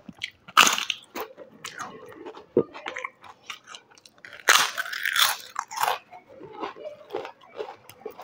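A person biting and chewing crisp, crunchy food in a string of sharp crunches, the loudest and longest stretch of crunching coming about halfway through.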